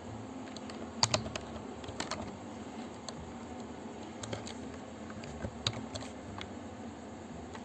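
Computer keyboard typing: scattered keystrokes coming in a few short clusters, over faint steady background noise.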